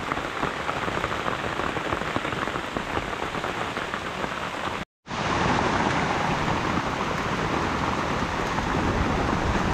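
Steady rain falling, with many fine drop hits pattering through the noise. About five seconds in the sound cuts out for a moment, then a steadier rushing noise carries on.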